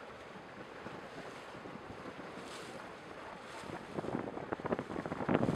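Wind buffeting the microphone over water rushing and splashing against the hull of a moving boat, louder and choppier from about four seconds in.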